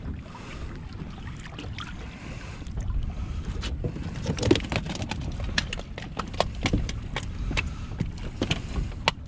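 Low steady rumble of wind and water around a small boat, then from about three seconds in a run of knocks and thuds as a hooked southern stingray is lifted aboard and dropped into the boat's fish-box hatch, with a sharp knock near the end as the hatch is handled.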